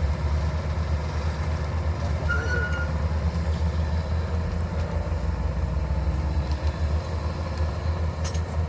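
Heavy diesel engine of construction machinery running steadily, a low hum that pulses quickly, with a brief click near the end.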